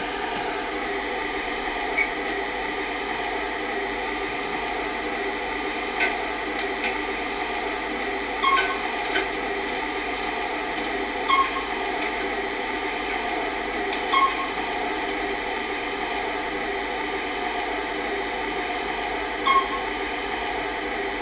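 Otis Series 4 lift running: a steady hum of the car travelling, with a few sharp clicks and short beeps every few seconds.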